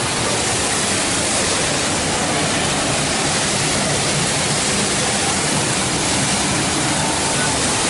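Waterfall: falling water making a loud, steady rushing noise with no breaks.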